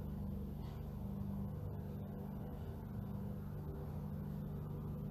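Steady low hum with no distinct events.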